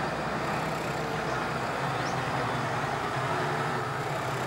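Farm tractor's diesel engine running steadily, a low even hum, as a buck-rake tractor pushes grass up a silage clamp.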